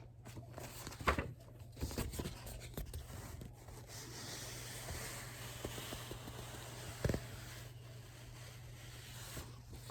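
Faint handling noise: a few soft knocks and rustles, with a sharper knock about seven seconds in, over a steady low hum.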